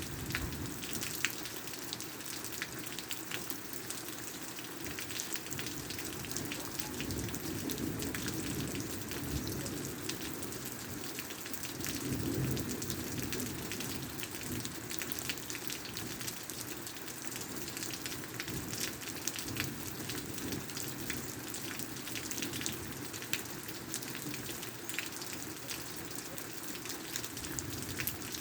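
Steady rain falling, with many separate drops ticking sharply close by over the even hiss of the downpour.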